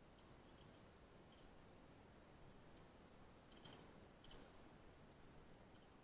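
Near silence with faint, sharp clicks scattered through it, about seven in all, the strongest a close pair about three and a half to four seconds in.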